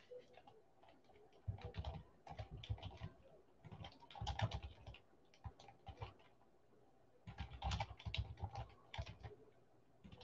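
Computer keyboard being typed on quietly, in several runs of rapid keystrokes with short pauses between.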